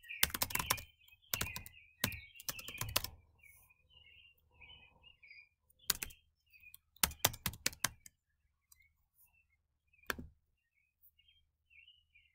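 Typing on a computer keyboard: quick runs of key clicks over the first three seconds, shorter runs about six and seven seconds in, and a single key press near ten seconds.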